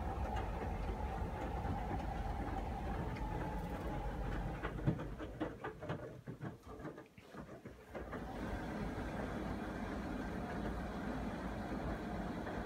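Miele laundry appliance running with a steady mechanical hum. About five seconds in, it drops away for a few seconds with a series of clicks and knocks, then a steady run resumes.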